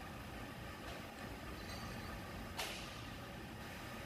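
A single sharp metallic clink about two and a half seconds in, as bent pieces of steel plate are handled against a vise-mounted hinge bending tool, over a steady low hum.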